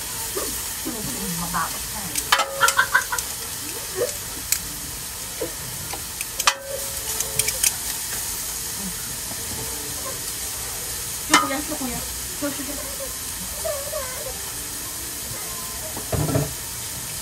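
Food sizzling steadily on a hot barbecue grill, with a few short clicks and clinks of utensils, a cluster about two to three seconds in and the sharpest about eleven seconds in.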